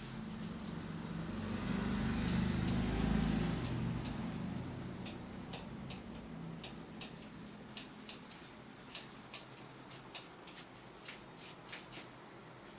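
A passing vehicle swells and fades in the first few seconds. Then comes a run of short, sharp, irregular clicks, roughly two a second, from hands working on the head during a barber's head massage.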